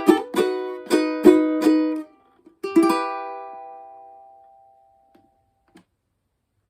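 Ukulele strumming chords in a quick even rhythm, stopping short about two seconds in. One last chord is then strummed and left to ring out and fade: the closing chord of the song. A couple of faint clicks follow.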